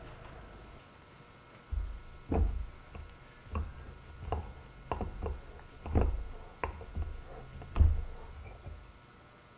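Two hand injectors of soft-plastic lure plastic being hit in turn as they are pushed down into an aluminium injection mould ('milking the cow'), working blue and black plastic together into a swirl. About ten dull knocks come roughly one every two-thirds of a second, starting about two seconds in.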